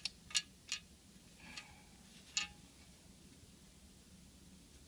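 A few sharp small clicks, three in quick succession in the first second, then two fainter clicks a little later. They are handling clicks from work on the receiver's front panel and power button.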